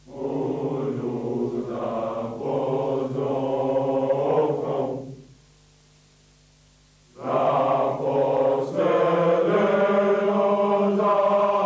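Male chorus of French Foreign Legion recruits singing a song together, in two phrases with a pause of about two seconds between them.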